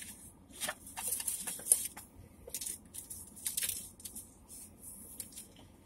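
Clear plastic packaging rustling and crinkling in irregular bursts as it is handled and an item is slid out of its sleeve.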